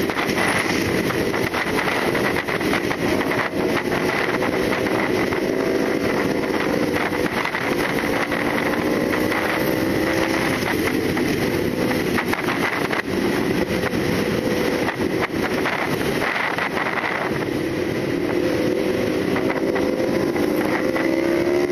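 CFMoto NK400's parallel-twin engine running at cruising speed with wind rushing over the microphone. The engine note drifts slowly lower, then rises again near the end.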